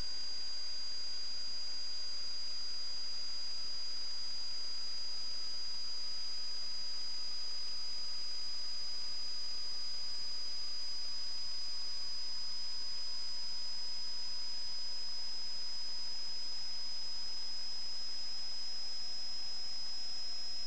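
Steady high-pitched electronic whine over a constant hiss, with a fainter tone slowly falling in pitch throughout: electrical noise picked up on the sewer inspection camera's recording.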